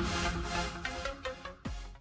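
Electronic intro music with a pulsing beat and bass, fading down toward the end, with a falling sweep just before it cuts off.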